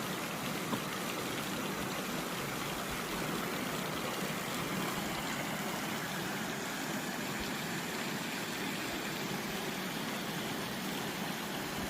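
Mountain valley stream flowing with a steady, even rush of water.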